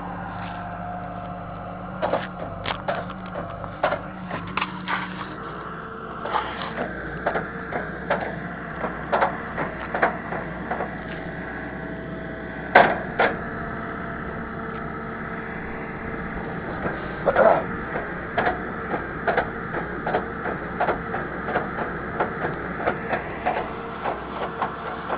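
Excavator's diesel engine running steadily, with many irregular metal clanks and knocks over it, loudest about a third and two thirds of the way through.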